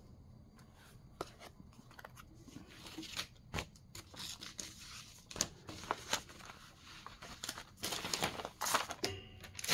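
Handling of cross-stitch kit packaging and contents: scattered small clicks and brief plastic crinkling, with a longer, louder rustle about eight seconds in.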